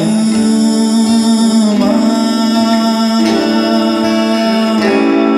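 Live music: a slow song in Portuguese, with a male voice singing the word "lama" over acoustic guitar and long held chords.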